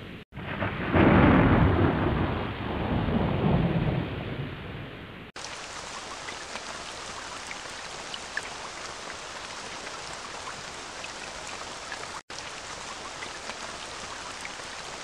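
Rain falling on a wet road: a steady soft hiss with scattered ticks of drops. For about the first five seconds a louder low rumble lies over it, and it cuts off abruptly.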